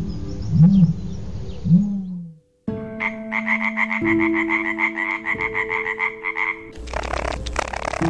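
A frog croaking in a fast pulsed trill, about seven pulses a second, lasting about four seconds over steady background music. Before it come three short low calls, each rising then falling; near the end a rougher, noisier animal sound begins.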